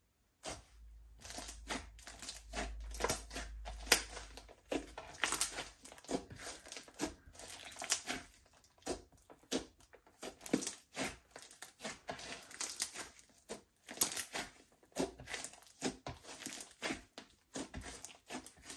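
Slime being mixed and squished by hand, giving a dense run of irregular sticky pops and crackles with brief pauses.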